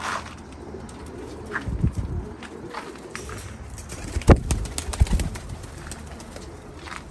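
Domestic pigeons of the kamenkar breed cooing in a wire-mesh loft, with a few loud thumps around the middle.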